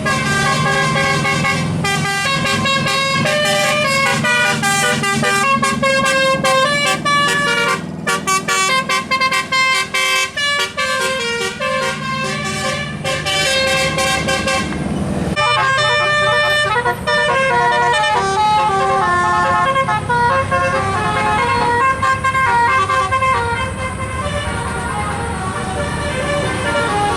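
Telolet musical air horns playing a fast melody of short stepped notes, several horn tones sounding together, over a vehicle's engine running. About halfway through, a different tune starts.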